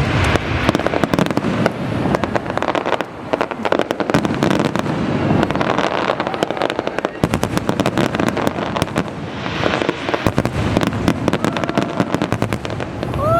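Fireworks display going off: dense, rapid crackling and popping over deeper booms.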